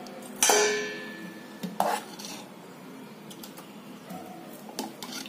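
Stainless steel ladle clanking against steel pots. There is one ringing clang about half a second in, another knock just before two seconds, and light clinks near the end.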